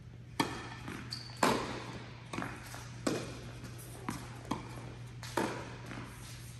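Tennis balls being struck by rackets and bouncing on an indoor hard court: about eight sharp pops at irregular intervals of half a second to a second, each followed by echo from the large hall. A steady low hum runs underneath.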